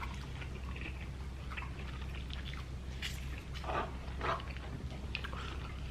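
Close-miked eating sounds: chewing and wet mouth noises, with a few louder ones a little past the middle, over a steady low hum.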